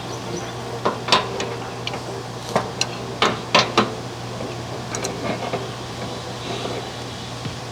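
A handful of sharp knocks or taps, hammer-like, bunched between about one and four seconds in, over a steady low hum.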